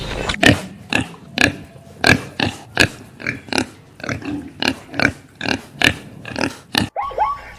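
An animal making short calls over and over, about two a second, for nearly seven seconds; the calls stop abruptly near the end.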